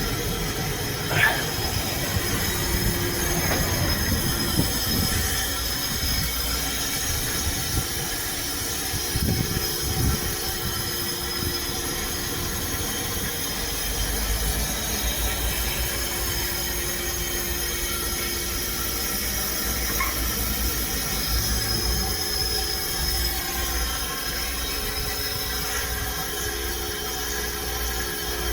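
High-pressure car-wash spray wand blasting water, a steady hissing spray with a high whine over it.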